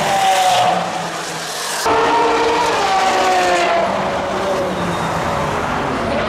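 Two supercars passing at speed, one after the other with a cut between: first a Lamborghini Aventador SVJ's V12, then a red Ferrari. Each engine note falls in pitch as the car goes by.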